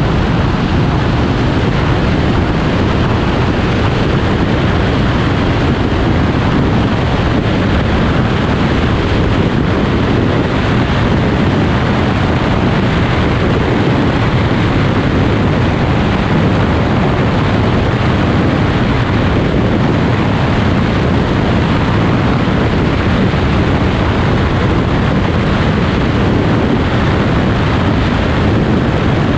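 Steady, loud rush of wind on an outside-mounted camera's microphone as a Porsche 944S runs at speed, mixed with the car's engine and tyre noise.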